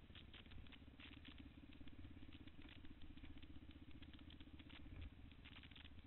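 Faint ATV engine running with a fast, even pulse, under scattered crackling.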